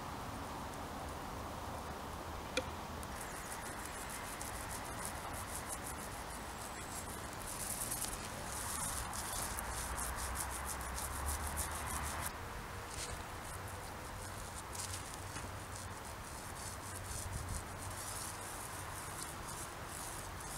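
Small paint roller rolling wet paint along a steel profile-pipe gate frame: a fine, rapid sticky crackle in passes, most intense for a few seconds in the middle, with a single sharp click early in.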